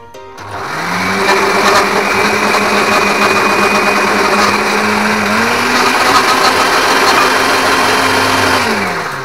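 Countertop blender grinding bread into bread crumbs. The motor starts about half a second in, runs steadily with a slight rise in pitch a little past halfway, and winds down near the end.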